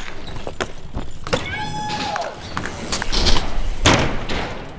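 BMX bike riding on concrete skatepark ramps: scattered knocks and clicks from the bike, then two rushing swells of tyres rolling hard through the ramp's curve near the end. A brief high squeal slides downward about two seconds in.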